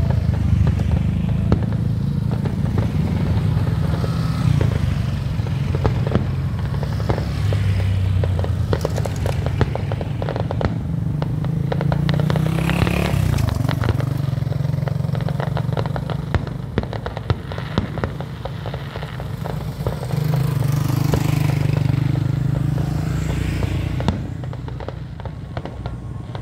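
A steady low motor hum with many scattered crackles and clicks over it. The hum drops back about two-thirds of the way in, swells again, then fades near the end.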